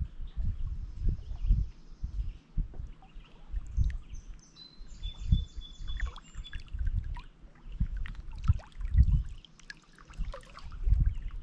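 Small waves lapping and splashing against shoreline rocks in irregular deep surges every second or so, with birds singing high, thin notes over them: a held whistle near the start, then a run of quick repeated notes about five seconds in.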